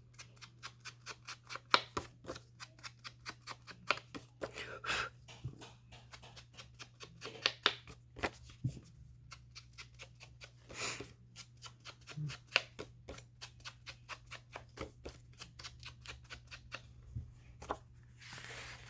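Paper and card being handled: rustling and sliding of paper pieces with many small taps and clicks, and a few louder rustles. A steady low hum runs underneath.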